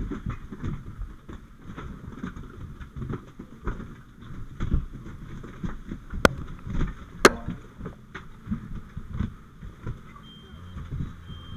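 Rubbing and rumbling handling noise with scattered knocks, as of gear and debris being moved close to the microphone, with two sharp cracks about a second apart near the middle. Faint short high beeps start near the end.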